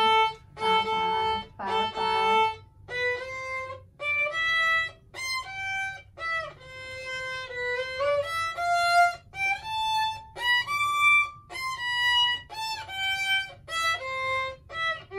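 A violin played in short, separate bowed notes that step up and down in pitch, with a brief gap between each note.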